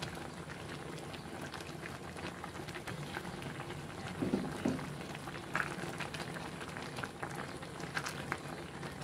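Pot of clear spinach soup boiling: a steady bubbling with a scatter of small pops. A couple of brief louder sounds come a little after the middle.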